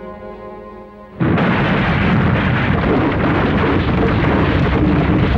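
Held music chords fade out, then just over a second in a sudden loud rumble starts and keeps going: the sound effect of a skyscraper beginning to topple over.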